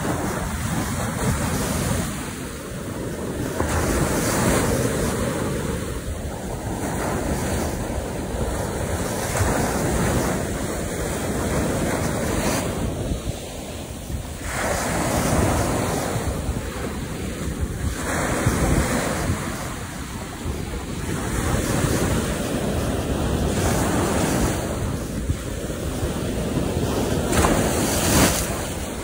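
Ocean surf breaking and washing up the beach, surging louder every few seconds, with wind rumbling on the microphone.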